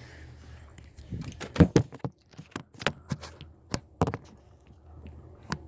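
A series of irregular light clicks and knocks, about a dozen, spaced unevenly over several seconds.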